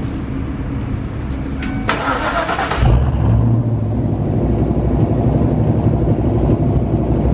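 Ford 5.0 (302) V8 with a B303 cam and Magnaflow Competition exhaust starting up: a short burst of cranking about two seconds in, then it fires with a jump in level about three seconds in and settles into a steady idle, echoing off the concrete parking garage.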